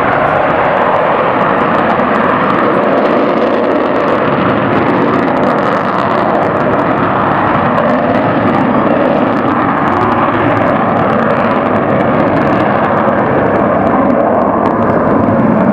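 Avro Vulcan's four Rolls-Royce Olympus turbojets running at power in a low flypast, a loud, steady jet roar.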